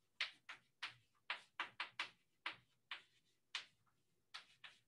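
Chalk tapping and scratching on a blackboard as words are written: a quick, irregular run of short strokes, about three a second.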